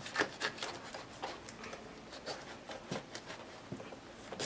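Kitchen knife working through the rind of a whole raw jackfruit: faint, irregular scratches and small clicks as the blade is pushed, rocked and drawn in the cut.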